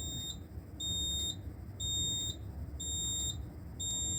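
Fire alarm control panel's built-in buzzer beeping in alarm: a high, piercing tone about half a second long, repeating about once a second. The panel is sounding alone because its horn strobe circuit is disabled.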